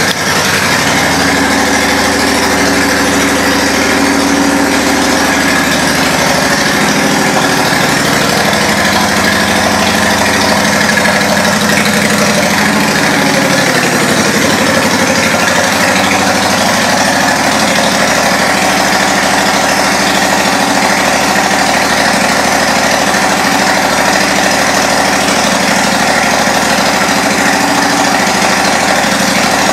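2011 Honda Shadow Phantom's V-twin engine idling steadily through aftermarket Cobra exhaust pipes, just after being started.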